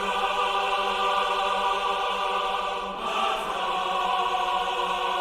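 A sustained choir chord, a heavenly 'ahh' sound effect, held steady; it starts and cuts off abruptly.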